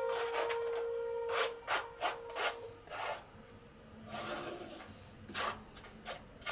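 Metal palette knife scraping and spreading thick acrylic paint on canvas: short dry rasping strokes, about two a second at first, with one longer drawn-out smear in the middle.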